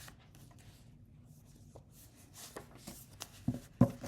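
Faint scattered clicks and rustling handling noises in a small, quiet room, with a few sharper taps in the second half.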